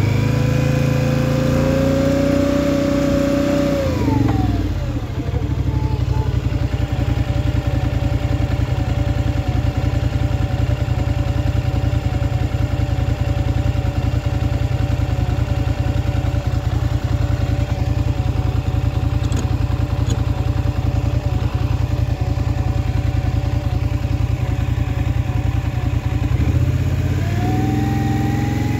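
Polaris Scrambler XP 1000 S ATV's twin-cylinder engine running at raised revs, then dropping to idle about four seconds in. It idles steadily for some twenty seconds, then revs up again near the end. The engine is run to show an unexplained noise the owner is concerned about.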